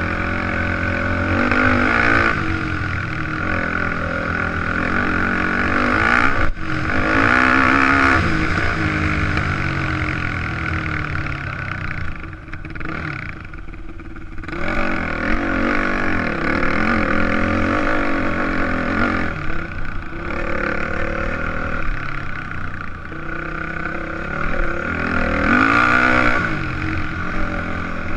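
Yamaha dirt bike engine running under changing throttle as the bike is ridden, its pitch rising and falling again and again through revs and gear changes. A sharp knock comes about a quarter of the way in, and the engine eases off for a couple of seconds about halfway through.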